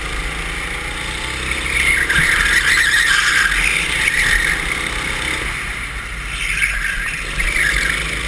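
Go-kart engine running at speed, heard from the kart itself with wind noise, and tyre squeal through the corners that gets loud from about two seconds in and returns briefly near the end.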